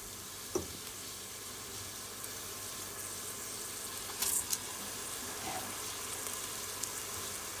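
Onions and lentils sizzling in hot oil in a stainless pressure cooker pot, a steady hiss. About four seconds in there is a brief louder burst as the washed rice goes into the pot.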